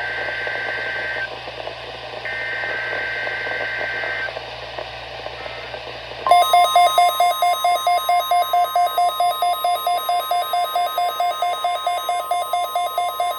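NOAA Weather Radio broadcast through a weather radio receiver. It opens with the buzzing two-tone SAME data header bursts, the end of one and then a full one about two seconds long. About six seconds in, the steady 1050 Hz warning alarm tone starts, and with it the receiver's alarm beeping rapidly, about four beeps a second: the weekly test activating the receiver's alert.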